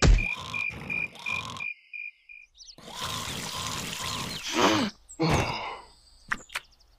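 A cartoon larva character snoring in its sleep: rasping breaths in and out, broken by a short pause about two seconds in. Under the first part a high beeping pulse repeats and then stops, and a few sharp clicks follow near the end.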